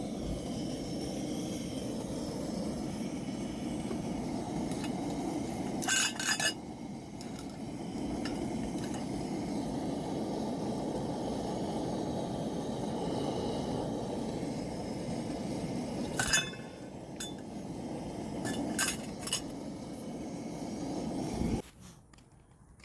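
Tableware clinking a few times (short sharp clinks about six, sixteen and nineteen seconds in) over a steady low rushing noise that cuts off abruptly near the end.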